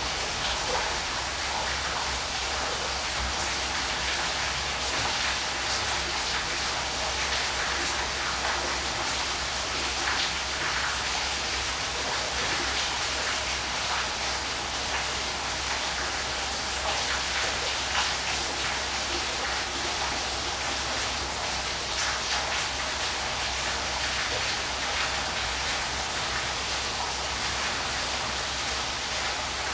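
Waterfall: a steady, even rush of falling water with no breaks.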